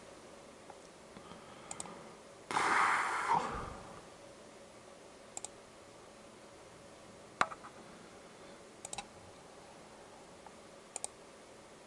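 Clicks from a computer's mouse buttons or keys: quick pairs of clicks every few seconds and one sharper single click past the middle. A noisy burst lasting a little over a second comes early on and is the loudest sound.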